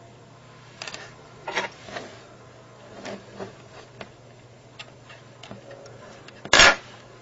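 Handling noises of copper wire and a metal tool on a tabletop: scattered light clicks and scrapes, with one louder short scrape about six and a half seconds in, over a low steady hum.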